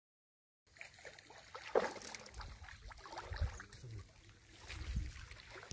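Shallow water sloshing and splashing around a wading person's legs as a hand fishing line is hauled in, with a sharper splash about two seconds in and a few low rumbles. It starts after about half a second of silence.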